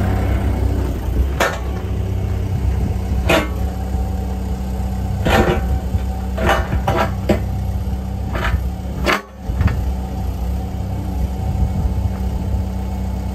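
Mecalac 6MCR excavator engine running steadily at idle, with a string of sharp clicks and knocks at irregular intervals over the first nine seconds or so.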